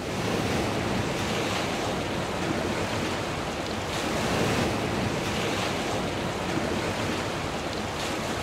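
Sea surf washing steadily on the shore, with wind buffeting the microphone: an even, unbroken rush.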